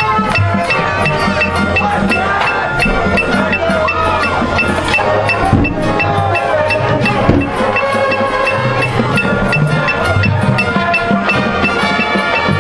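High school marching band playing its field show: sustained wind chords over a steady pulse of sharp percussion strikes, with front-ensemble mallet percussion such as marimba, xylophone and glockenspiel.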